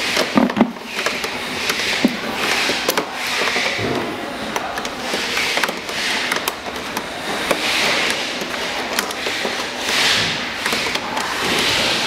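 Irregular scraping and clicking of hard plastic, with a few knocks, as a screwdriver and gloved hands work loose the plastic motor gearbox of a children's electric ride-on buggy.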